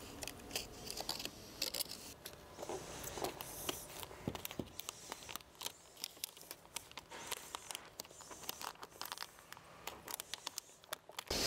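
Adhesive vinyl wrap film being handled on car trim: faint, irregular crinkles, small clicks and scrapes as the film is lifted, repositioned and pressed down by hand.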